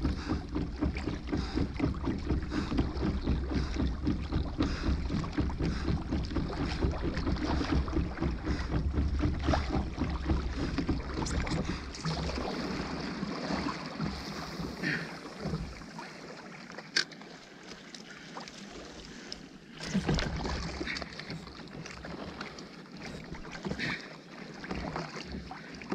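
Water sloshing against a fishing kayak's hull, with wind buffeting the microphone. The wind rumble drops away about halfway through, leaving quieter lapping and a few light knocks.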